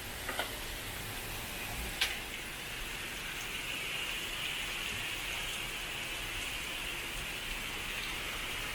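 Steady hiss of falling water, like rain, growing stronger about three seconds in, with a couple of light clicks near the start and one sharp click about two seconds in.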